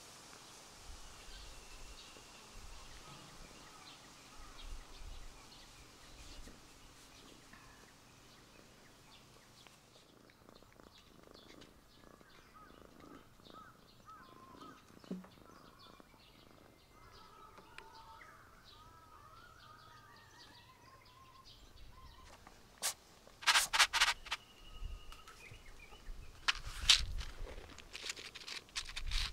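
Quiet outdoor ambience with faint birds chirping in the middle. After about twenty seconds come loud rattling and crackling bursts as dry cat food is served onto a paper plate.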